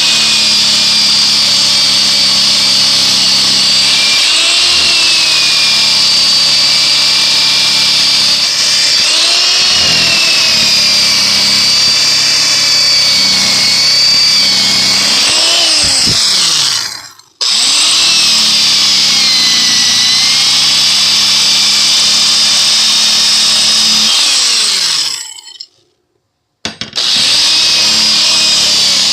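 Electric drill spinning a wire brush against a rusty steel mattock head, scrubbing off rust; the motor's pitch dips now and then. It stops briefly a little past halfway and again near the end, starting up again each time.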